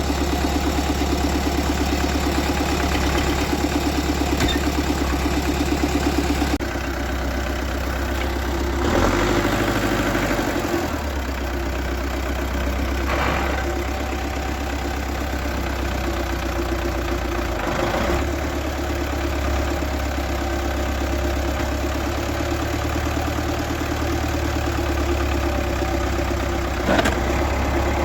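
A vehicle engine running steadily throughout, with a few short knocks and clunks. Its sound drops and changes about six and a half seconds in.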